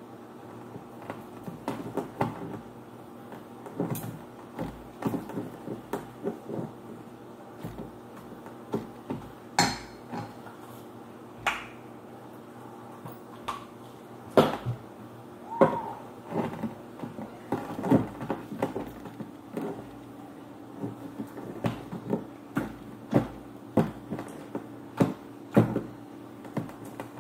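Plastic spatula knocking and scraping against a stainless steel mixing bowl as sticky glue slime is stirred and stretched: irregular clicks and taps, some sharper than others, over a steady low hum.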